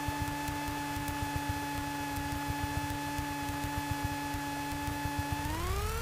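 Piper Warrior PA28's engine heard through the cockpit headset intercom: a steady low rumble with a steady whining tone. Near the end the tone rises in pitch as the engine speeds up.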